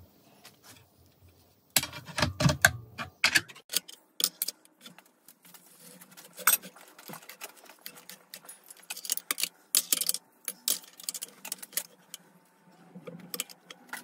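Steel parts of a homemade tube bender clinking and knocking on a steel welding table as a thin steel rod is clamped and bent around the bender's round die. A loud cluster of knocks comes about two seconds in, then scattered clicks and clinks.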